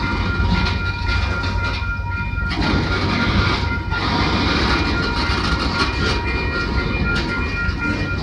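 Freight cars, a tank car and covered hoppers, rolling steadily past through a grade crossing: a continuous rumble and rattle of wheels on rail. Steady high ringing tones run over it.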